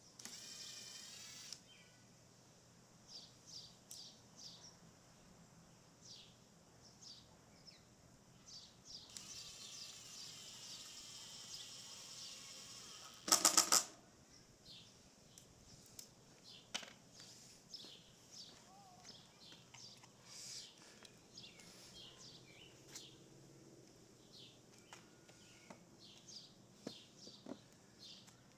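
Small birds chirping on and off throughout. About halfway through a cordless drill gives a short, loud burst, driving a screw into the wooden dividers, and twice before that there is a quieter hissing whir.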